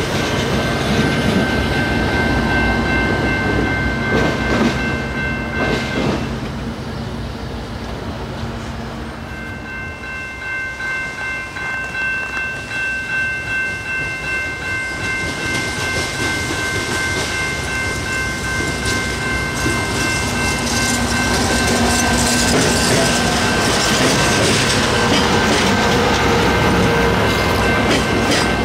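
Commuter train of bilevel passenger coaches approaching and passing on the rails, with a regular clicking of wheels over rail joints about halfway through, then a louder steady rush as the cars go by. A sustained chord of high steady tones sounds over it, breaking off briefly near the quarter mark.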